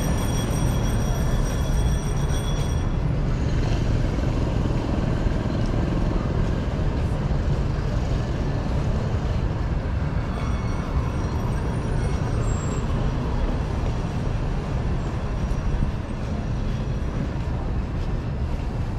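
Metro train running: a steady, loud low rumble, with a few high steady tones that cut off about three seconds in.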